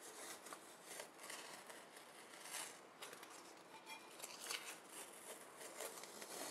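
Masking tape being peeled off a glass jar painted with acrylic paint: faint, uneven crackling rasps as the strip lifts.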